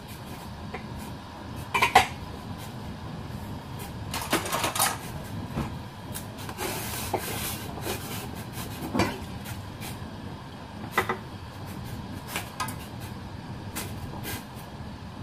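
Silicone spatula stirring meat in a stainless steel pot of boiling water: scattered knocks and clinks against the pot, the sharpest about two seconds in and a cluster a couple of seconds later, over the steady noise of the boiling pot.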